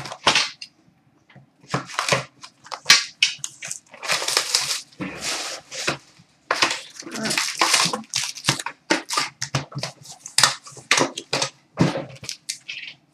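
A sealed cardboard box of trading-card packs being cut open by hand and its wrapped packs pulled out and set down: an irregular run of crinkling, tearing and rustling of shrink-wrap, cardboard and pack wrappers.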